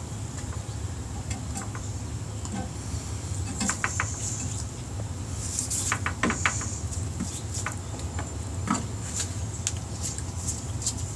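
Scattered light metallic clicks, taps and knocks of parts and tools being handled as a motorcycle rear wheel is worked into place, over a steady low hum and a faint high whine.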